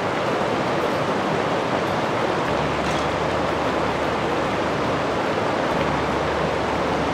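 Rushing water of the Medicine Bow River, a steady even rush. A low rumble joins for a few seconds in the middle.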